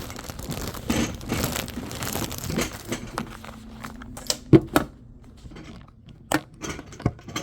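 Handling of a pressure cooker lid and its rubber gasket as it is fitted: rustling and scraping for about three seconds, then a few sharp clicks and knocks, the loudest about halfway through.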